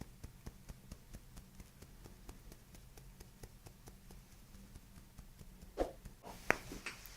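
Quick, light tapping, several taps a second, over a low steady hum, with a few louder sharp clicks about six to seven seconds in.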